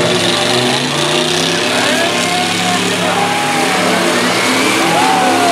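Demolition-derby pickup truck engines revving hard and steadily, with a few rising-and-falling glides in pitch over the top.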